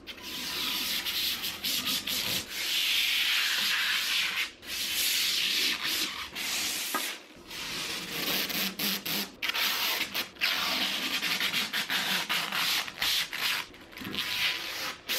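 Protective plastic film being peeled off a clear panel and handled: a long rasping hiss as the film pulls away, broken by a few short pauses, with crinkling of the loose plastic sheet.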